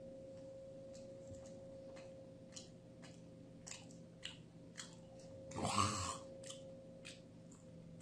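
Man chewing raw chicken breast sashimi, with small wet mouth clicks and smacks about every half second over a steady hum. About five and a half seconds in there is one brief, louder voice-like mouth-and-throat sound.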